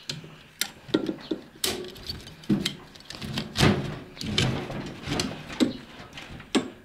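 Metal ratchet buckle of a tie-down strap being worked by hand as the strap is released: an irregular series of sharp clicks and dull knocks.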